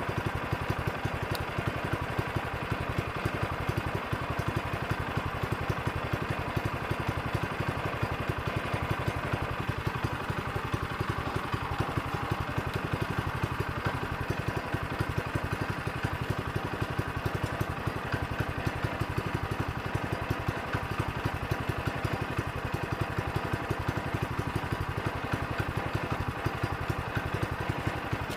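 Portable sawmill's small gasoline engine running steadily at idle, an even, rapid pulsing with no change in speed.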